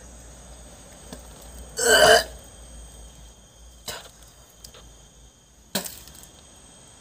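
A person's loud belch, about half a second long, a couple of seconds in; later two short, sharp clicks.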